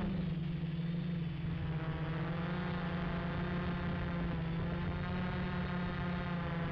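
Gaui 330X quadcopter's electric motors and propellers humming at a steady pitch as it hovers in flight.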